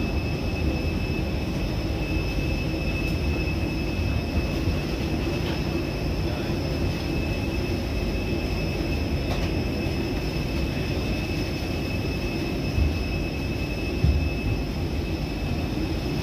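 Steady low rumble with a constant high whine from a parked jet airliner, heard from the jet bridge beside it, with a couple of soft knocks near the end.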